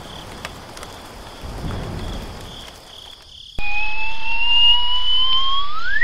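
Storm sound effect of rain with low thunder rumbles and a pulsing insect chirp. About three and a half seconds in it cuts to a loud whistle-like tone that rises slowly and then sweeps sharply upward near the end.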